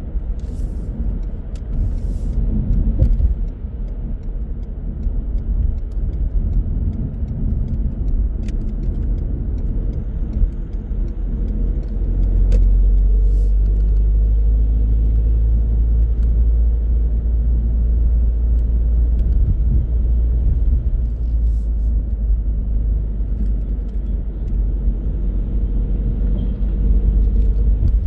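Car driving, with a steady low rumble of engine and tyre noise. The rumble grows deeper and louder about halfway through and then holds steady. A few faint clicks and knocks come in the first half.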